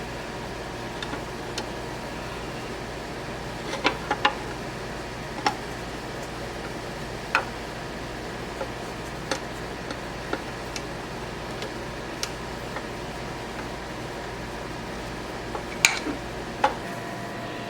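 Scattered light clicks and taps of small parts and tools being handled while a circuit board is mounted back inside a lathe headstock, a few louder ones about four seconds in and near the end, over a steady background hum.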